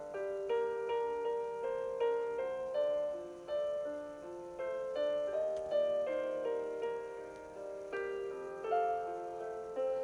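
Background piano music, a gentle melody with notes struck about twice a second.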